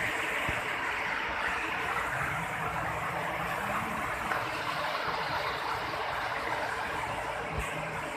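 Waterfall water rushing in a steady, even roar.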